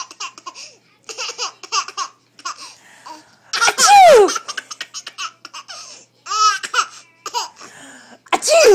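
A baby laughing hard in quick, stuttering bursts of giggles, set off by a sneeze just before. About four seconds in there is a loud cry that falls in pitch.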